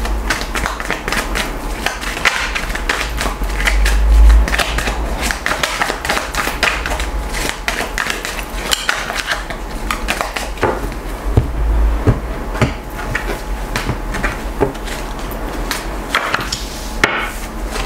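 Tarot cards being shuffled by hand, overhand, a dense rapid patter of card edges clicking and slapping against each other with paper rustle. Two low thuds come through, about four seconds in and again about twelve seconds in.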